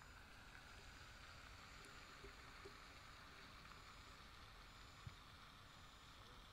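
Near silence: a faint steady background hiss of open air, with one faint tap about five seconds in.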